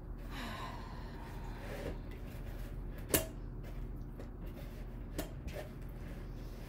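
Wooden spoon stirring bread dough in a mixing bowl, knocking sharply against the bowl once about three seconds in and more lightly about two seconds later, over a steady low hum.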